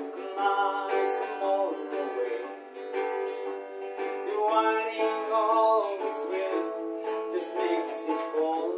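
Acoustic guitar strumming chords under a man singing.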